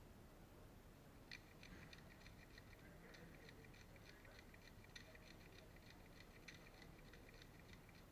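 Faint, irregular clicking, several sharp ticks a second, starting about a second in over a quiet background hiss.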